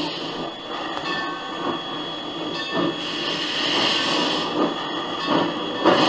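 Steam locomotive #15, an ex-Rahway Valley 2-8-0 Consolidation, working with exhaust chuffs over a steady steam hiss, with a louder chuff near the end. The sound comes from an old phonograph record.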